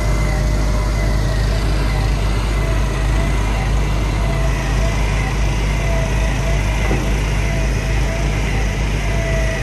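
Truck-mounted mudjacking rig running steadily, its engine and hydraulic pump and mixer working the mud-and-cement slurry, with a steady high whine over the engine.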